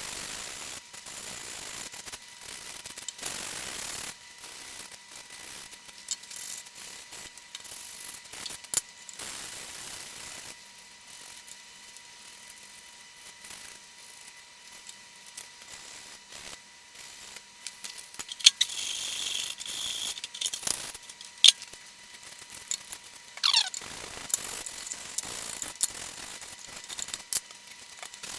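Hand work on plastic tractor dash and trim pieces: stretches of rasping and scraping with many irregular clicks and knocks, a few sharper knocks past the middle, and a short falling squeak about three quarters of the way through.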